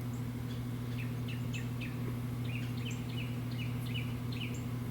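Birds chirping in quick, short notes, over a steady low hum.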